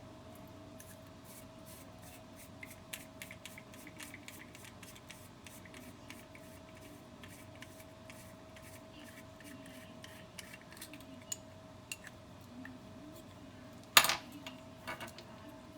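Small plastic parts of a handheld breathing trainer being handled and taken apart: scattered light clicks and rubbing, with one louder snap about fourteen seconds in. A faint steady hum underneath.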